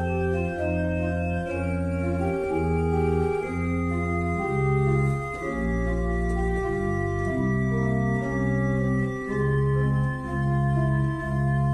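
Organ music: slow, sustained chords over a bass line that moves to a new note about once a second.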